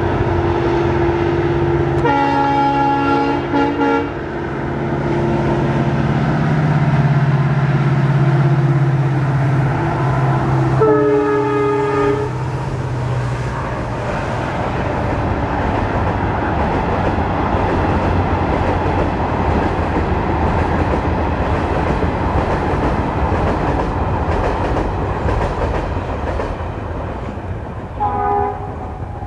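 WDP4D diesel-electric locomotive (EMD two-stroke engine) running with a steady low hum and sounding its multi-tone horn three times: a two-second blast about two seconds in, a shorter one about eleven seconds in, and a brief toot near the end. After the second blast the rumble of the passenger coaches rolling along the track takes over.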